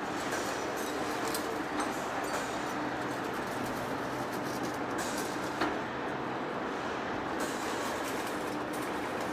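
Heavy face lathe running, a steady mechanical noise with a constant low hum, and a single sharper click a little past halfway.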